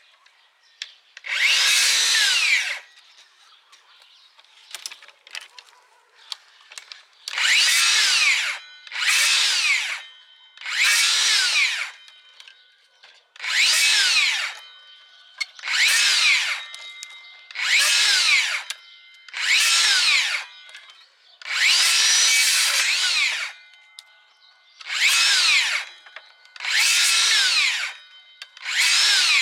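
DeWalt DCS578 60V FlexVolt cordless circular saw cutting thin, dry tree branches in about a dozen short bursts. Each time the motor whines up to speed, cuts through a branch, and winds down quickly as the electric brake stops the blade.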